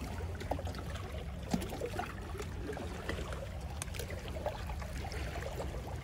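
Sea water lapping and trickling among shoreline rocks over a low steady rumble, with a few faint ticks.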